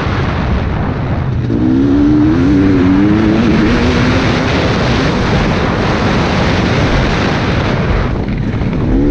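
KTM 250 EXC TPI two-stroke dirt bike engine being ridden hard, its revs rising and falling through the corners, with a brief drop in revs near the end. Heavy wind rushes over the helmet-mounted microphone.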